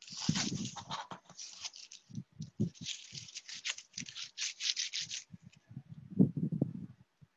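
Tape being peeled and pulled off a mold-casting box in a series of rasping tears, with a few low knocks from the box parts being handled near the end.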